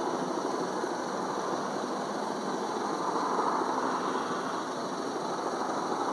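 Boat engine running with a steady drone.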